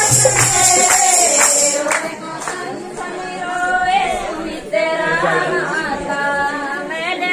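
Group of women singing a Pahari devotional folk song to a dholak and a jingling percussion instrument. The drum and jingles stop about two seconds in and the women's voices carry on.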